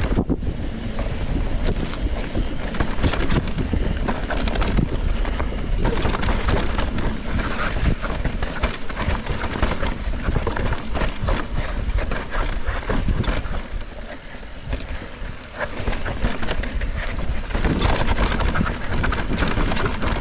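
Mountain bike ridden over a dirt trail: wind buffeting the camera microphone, tyres rolling on loose dirt, and frequent clicks and rattles from the bike over bumps. It goes briefly quieter about two-thirds of the way through.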